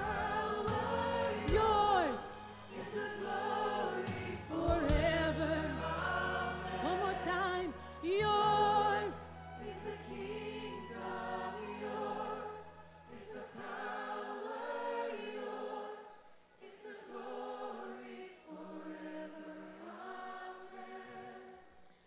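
Worship singers and choir singing a slow, held worship song over a sustained keyboard pad; the low bass drops out about two-thirds of the way through and the singing grows softer toward the end.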